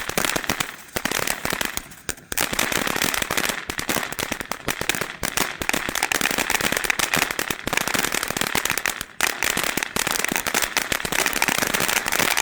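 Miraculous Magic Box fountain firework crackling: a dense, rapid, continuous stream of small pops, with a few brief lulls.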